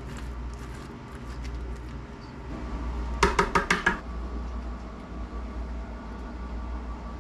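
Soft scraping as roasted pumpkin flesh is scooped from its shell. A little over three seconds in comes a quick run of about six sharp knocks, the loudest sound here, over a steady low hum.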